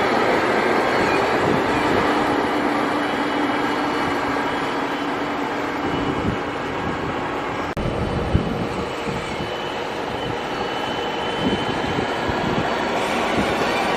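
Fendt 724 tractor and trailed Ropa Keiler II potato harvester running steadily, a continuous mechanical rumble and rattle. The sound shifts abruptly about halfway through, and scattered low knocks follow.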